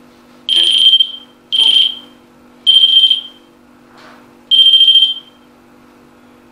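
REM pod sounding its alarm: four loud, high-pitched beeps, each under a second long and unevenly spaced, as it is being set in place.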